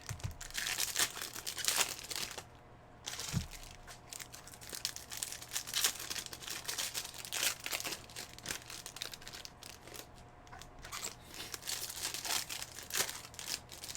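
Plastic and foil wrapping crinkling and tearing in irregular crackly rustles as a sealed box of 2021 Topps Chrome baseball cards and its packs are unwrapped by hand, with a soft thump about three seconds in.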